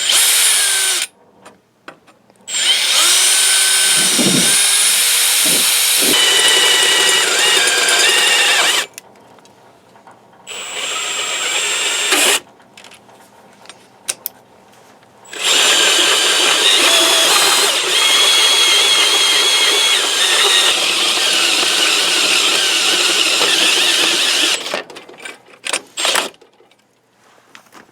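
Makita brushless drill turning a 1.5-inch bimetal hole saw at slow speed through metal, with a wavering, squealing cut. It runs in several stretches with short pauses between them.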